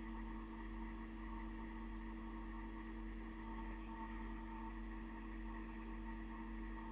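Steady, unchanging hum made of several constant pitches, low and high, over a faint hiss: background electrical or equipment noise.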